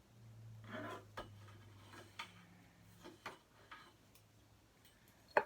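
A few sharp clicks, spaced irregularly, the loudest one near the end: small nail clippers snipping a parrot's toenails.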